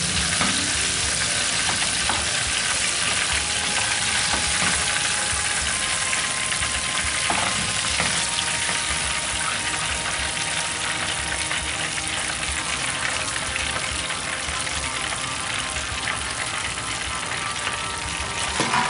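Breaded chicken pieces deep-frying in hot oil: a steady, dense crackling sizzle, with a wire skimmer stirring and clinking in the steel pan now and then. A brief louder knock comes near the end.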